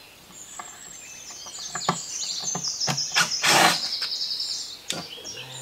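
A songbird singing rapid, high, trilled phrases, with a few short wooden knocks and one louder scrape about three and a half seconds in as a wooden formwork box is handled on a concrete base.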